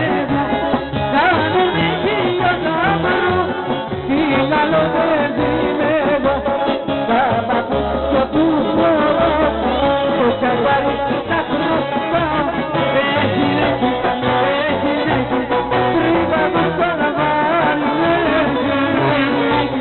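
Live Greek folk dance music played loud through a PA: a woman sings with clarinet and a plucked lute over a pulsing bass.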